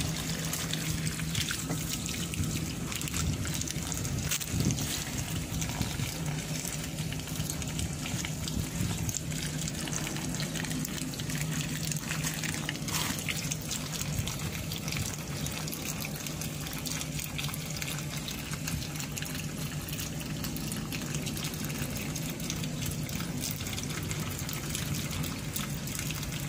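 Steady running water trickling, with a low steady hum beneath it.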